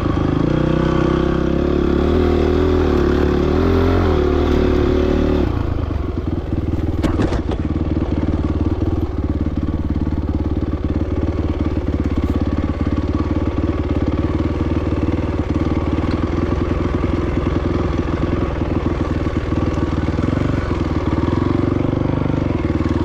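Motorcycle engine running steadily under way on a trail. About five or six seconds in the engine note drops and settles lower, and a brief clatter follows a second later.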